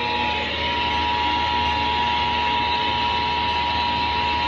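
Emergency Alert System attention signal: the steady two-tone alert tone held without a break, over a heavy hiss of broadcast static.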